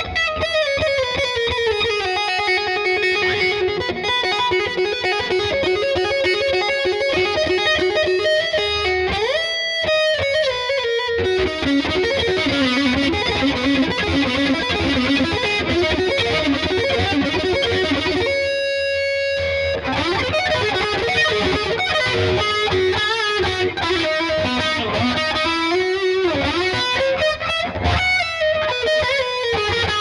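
Sterling by Music Man SUB Series AX3 electric guitar with its two humbuckers played through a distorted tone: a lead line of sustained notes with slides and bends, and one note held alone a little past halfway.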